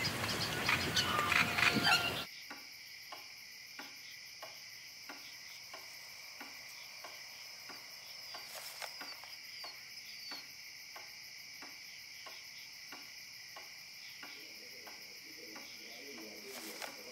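About two seconds of louder open-air noise with short chirps, then a sudden drop to a quiet scene where crickets chirp steadily at a high pitch. Under the crickets an even, faint ticking runs at about two to three ticks a second.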